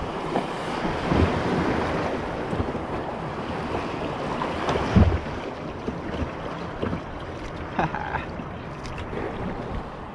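Kayak paddle strokes and water splashing and lapping around the hull on choppy river water, with wind buffeting the microphone. A few low thumps stand out, the strongest about a second in and again about five seconds in.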